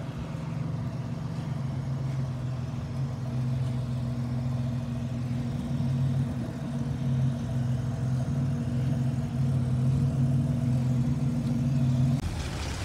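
Diesel engine of a car-transport truck idling steadily, an even low hum. The sound changes abruptly near the end.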